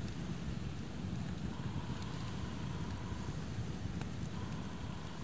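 Wood campfire burning, with a few sharp crackles, the clearest about four seconds in, over a steady low rushing noise.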